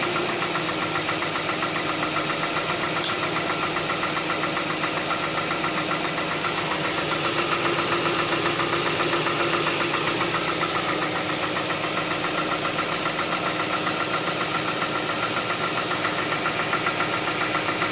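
Hyundai Tucson 2.0 16-valve four-cylinder engine idling with a steady, rapid ticking clatter, which a mechanic puts down to the hydraulic lifters (tappets), though the owner is not yet sure. The noise is the kind heard at a cold start that fades once the engine has warmed up.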